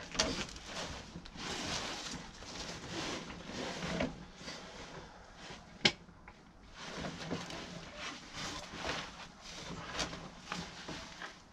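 Irregular rustling and scraping of a caver's oversuit against rock and soil as he squeezes down into a narrow cave entrance, with one sharp knock about six seconds in.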